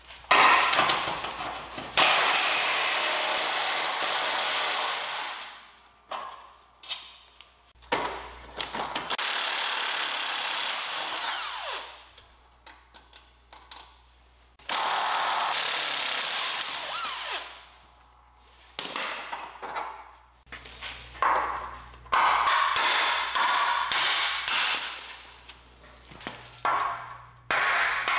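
A cordless power tool driving a socket on rusted truck-frame bolts, run in several bursts of one to four seconds with short pauses between them, as the bolts are worked loose. Near the end come a few sharp metal knocks.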